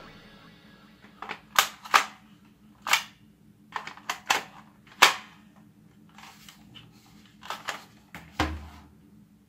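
Irregular sharp plastic clicks and snaps from a toy AK-47 gel-ball gun as its plastic magazine is pushed into and pulled out of the magazine well. There are about a dozen clicks, the sharpest about five seconds in.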